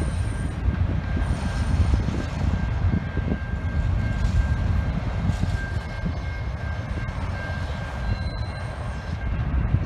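Freight train of autorack cars rolling past, a steady low rumble of steel wheels on the rails, with a thin steady high whine running through it.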